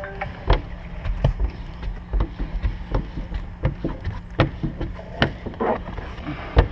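Clear Max squeegee working wet tint film onto the inside of a car's rear window: irregular scrapes, taps and knocks over a steady low hum.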